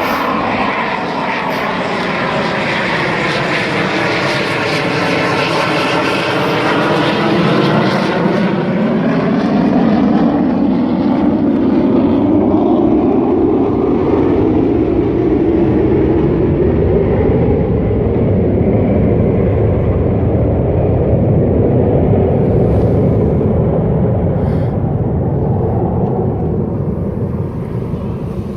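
Small airplane passing low overhead, its engine making a loud racket. Tones sweep down and back up over the first ten seconds as it passes, then a steady rumble that eases off near the end.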